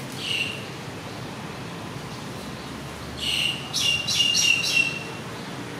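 A small bird chirping: one short high chirp near the start, then a quick run of about five chirps about three seconds in, over a steady background hiss.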